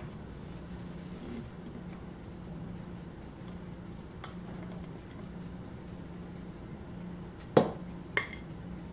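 Chocolate cake batter being poured from a glass bowl into an aluminium baking pan: mostly quiet over a low steady hum, with a faint click midway and two light knocks near the end.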